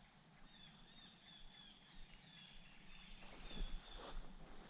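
Steady high-pitched chorus of insects such as crickets, with a fainter short chirp repeating through it.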